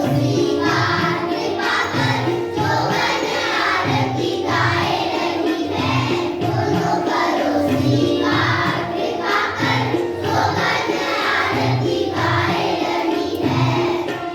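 Children's choir singing a Hindu devotional song to Krishna, over a steady drum beat.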